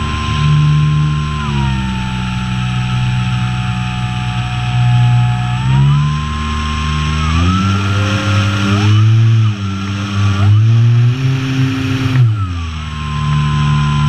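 Electric motor and propeller of an Apprentice S electric trainer model airplane whining in flight, over a steady rush of wind. The pitch follows the throttle: it drops about a second and a half in, climbs in two steps around the middle, and falls again near the end.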